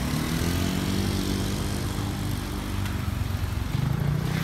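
Motor scooter engines running as motorbikes pass close by on the street, a low, steady engine note.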